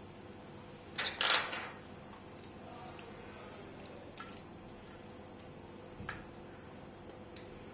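Small metal fly-tying vise parts handled and fitted together: a short rasping scrape about a second in, then a few light metallic clicks, the sharpest around four and six seconds in.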